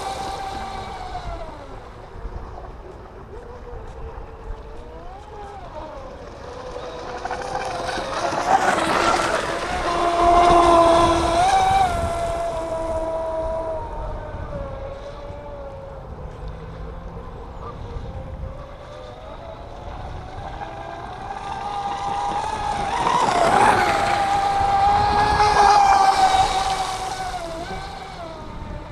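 Electric RC speedboat motor whining out on the water, its pitch rising and falling with the throttle. It passes close twice, swelling louder about a third of the way in and again near the end, each time with a hiss of spray, then fades back.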